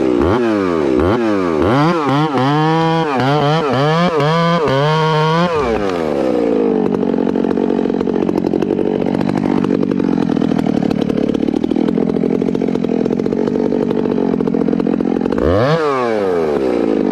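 Two-stroke chainsaw bucking a pine log. For the first five and a half seconds the engine revs up and down about twice a second. It then runs steady at a lower pitch under load in the cut, and rises and falls again near the end as the cut nears completion.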